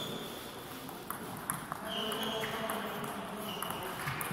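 Table tennis ball being struck back and forth in a rally: a few sharp, ringing pings as it hits the bats and the table.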